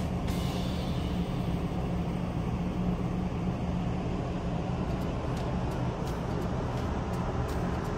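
Ship's engine and machinery giving a steady low drone under a rushing noise, heard on deck during unberthing.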